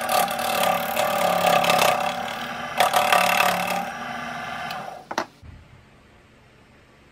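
Small lathe running with its motor humming steadily while a tool cuts the spinning HDPE blank, with a harsh scraping in two stretches. It winds down and stops with a click about five seconds in.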